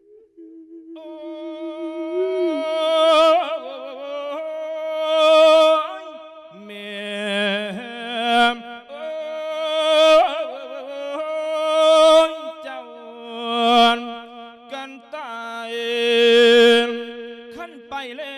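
A monk singing a Thai Isan lae sermon: a long, wavering, melismatic vocal line with vibrato, swelling and falling in phrases about every two seconds, over steady sustained accompanying notes.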